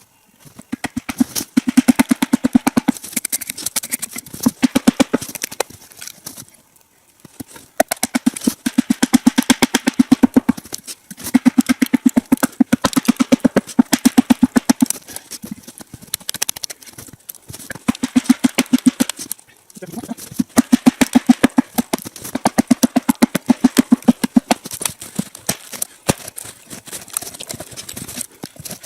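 Fast runs of sharp wooden knocks in bursts of one to three seconds with short pauses between: blows driving wedges into a log to split it lengthwise.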